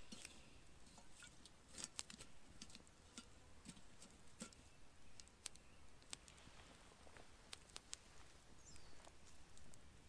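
Faint, scattered crackles and clicks of a small wood campfire, with a metal kettle set down and shifted on the burning logs. A short falling whistle near the end.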